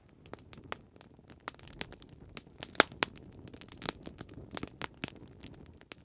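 Wood fire crackling, with irregular sharp pops and snaps.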